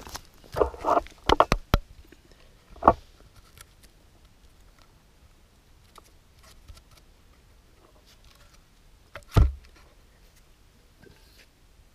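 Handling noises at a log being bored with a spiral hand auger: a quick run of scrapes and clicks about a second in, a sharp knock near three seconds, and a heavier thump about nine seconds in.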